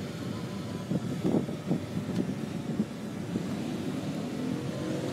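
Motorcycles and police cars of a convoy running past with a steady mixed engine noise, louder at moments between one and three seconds in. Near the end an engine's pitch rises as it speeds up.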